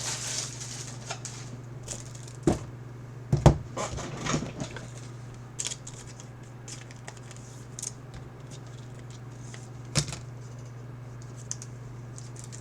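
Scattered light clicks and rustles of handling at a table, with a few sharper knocks about two and a half, three and a half and ten seconds in, over a steady low hum.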